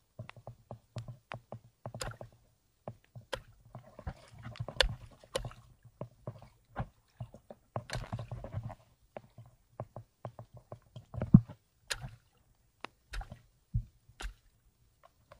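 Shallow seawater splashing and sloshing as someone moves through it, with many sharp clicks and knocks scattered throughout. The loudest hit comes about eleven seconds in.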